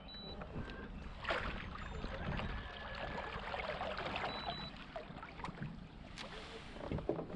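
Water splashing and lapping against a fishing kayak's hull as it moves across the lake, with a few light knocks on the boat.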